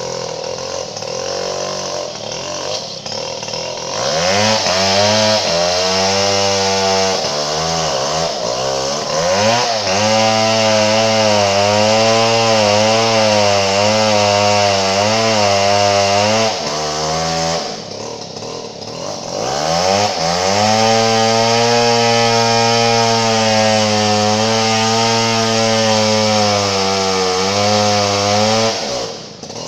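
Chainsaw revving up and cutting into a log twice, its engine note wavering and bogging under load, dropping back to idle between the two cuts and near the end.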